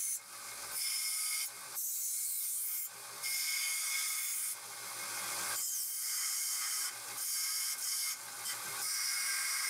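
Small narrow-belt sander with a 40-grit belt grinding the corners off an aluminum plate: a steady rasping hiss that breaks off several times for a moment as the plate is lifted from the belt, leaving the motor's low hum.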